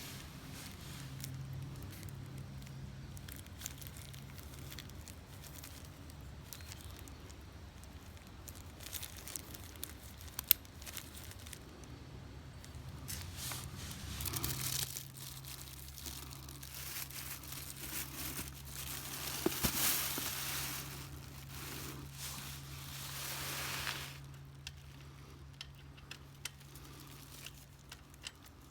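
Rustling, crinkling and scattered clicks and knocks of hands working, with one sharp knock about ten seconds in and louder rustling bursts later on, over a steady low hum.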